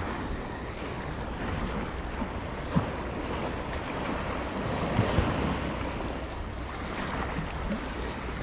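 Sea waves washing, with wind buffeting the microphone; a few light knocks stand out near three and five seconds in.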